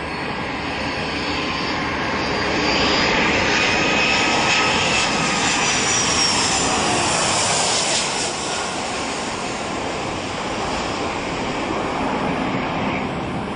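Airplane engine noise swelling to its loudest for several seconds in the middle, with faint gliding tones, then easing off.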